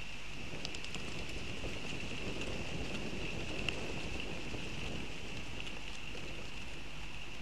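Outdoor ambience of wind rustling foliage, swelling through the middle, over a steady high-pitched tone, with a few faint ticks near the start and one in the middle.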